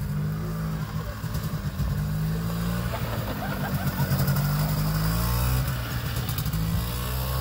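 Small quad bike (ATV) engine running as it rides along a dirt trail, its pitch rising and falling with the throttle. It gets louder as it passes close by about four seconds in.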